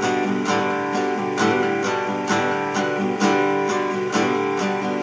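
Instrumental song passage with no singing: acoustic guitar chords played in a steady rhythm, about two strokes a second.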